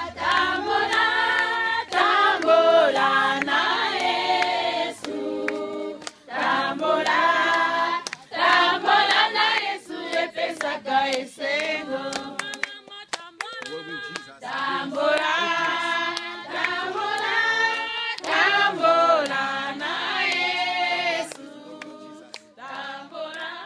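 A group of women singing together in phrases, with hand claps; the singing grows softer near the end.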